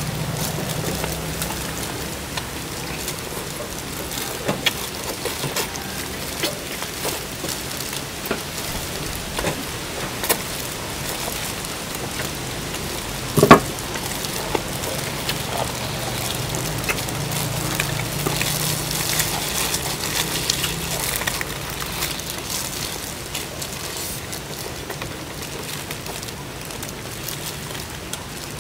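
People eating at a table: scattered small clicks and knocks of utensils, bones and dishes over a steady hiss, with one sharper, louder knock about halfway through.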